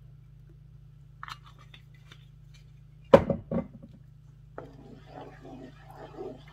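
Wooden spoon stirring thick tomato curry sauce in a nonstick pan, a wet, irregular squelching that starts about halfway through. Just before it come two loud knocks half a second apart, over a steady low hum.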